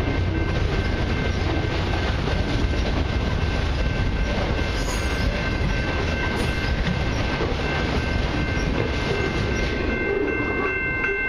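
Freight train of autorack cars rolling past, with a steady loud rumble and rattle of wheels on rail and a few thin high ringing tones held over it. In the last second the high tones start pulsing rapidly, several times a second.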